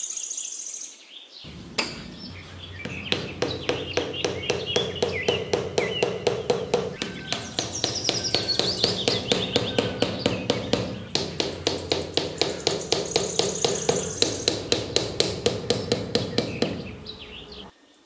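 Rapid, evenly spaced knocking, about four strokes a second, with birds chirping over it. The knocking begins about a second and a half in and stops just before the end.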